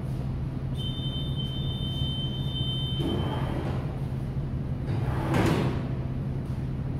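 RS1007 sliding turnstile's leaves sliding, two swishes a couple of seconds apart, over a steady low hum. A high, steady electronic beep sounds for about three seconds near the start.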